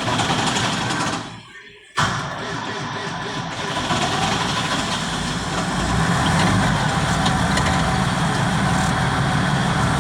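Massey Ferguson 7614 tractor's diesel engine being started with difficulty. It cranks for about a second, stops briefly, then cranks again from about two seconds in and is running steadily by about six seconds in. This is a hard start, which the owner says needs long cranking to get it going.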